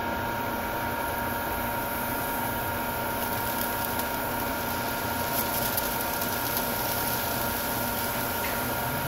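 Liquid nitrogen poured over a rubber balloon, hissing faintly as it boils off, with a few light crackles as the balloon freezes and shrivels. A steady hum with several fixed tones, typical of room ventilation, runs underneath and is the loudest sound.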